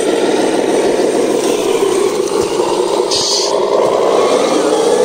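Small electric motor and gearbox of a handmade RC model truck running steadily under load, the pitch rising a little near the end, with a brief hiss about three seconds in.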